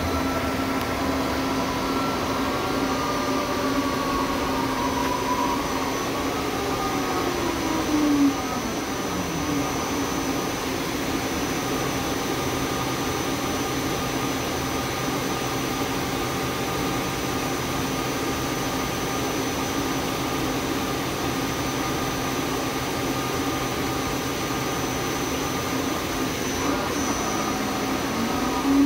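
Amera Seiki TC-2L CNC lathe running under power: a steady machine hum with a constant whine. About eight seconds in, a motor whine falls in pitch as it winds down, and near the end another rises as a motor speeds up.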